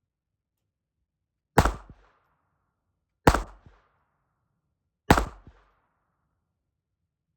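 Three shots from a Ruger Mark IV Hunter .22 LR pistol, spaced a little under two seconds apart. Each crack trails off in a short echo.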